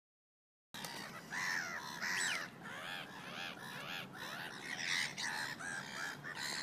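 Many birds calling at once, a dense overlapping chorus of short squawks and caws that cuts in abruptly a little under a second in.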